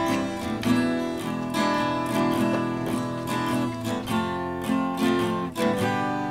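Background music: acoustic guitar chords strummed in a steady rhythm.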